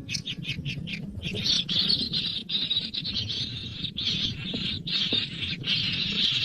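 A young bird calling: a quick run of short raspy calls, about five a second, then longer hissing, rasping calls broken by brief pauses.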